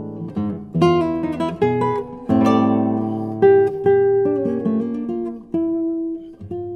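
Background music on acoustic guitar: plucked and strummed chords, each note starting sharply and dying away.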